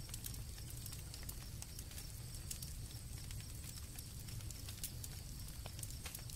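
Campfire crackling with irregular sharp pops over a low steady rumble of burning wood, with a faint steady high chirping of crickets underneath.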